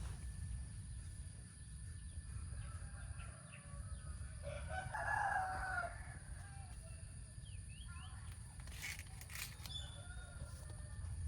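A rooster crows once, a call of about a second and a half, roughly halfway through, over a steady low rumble.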